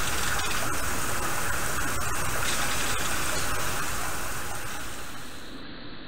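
Water from a small garden waterfall splashing steadily into a rock-lined pond, growing fainter over the last two seconds.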